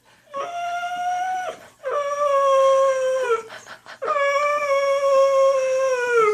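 Boxer–bull mastiff dog whining for attention: three long, high whines, each held steady and dropping in pitch at the end.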